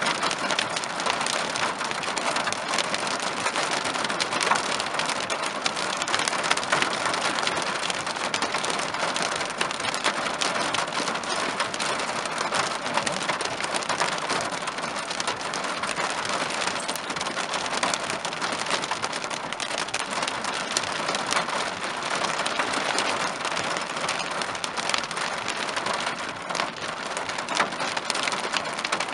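Hail and rain hitting the car's roof and windshield, heard from inside the cabin: a dense, steady clatter of countless small impacts.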